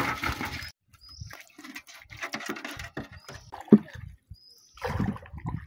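Water and fish splashing into a metal bucket as a basket trap is emptied, cutting off under a second in. Then come scattered knocks and splashes from a wooden paddle on a small wooden boat, with one sharp knock in the middle, and three short high chirps.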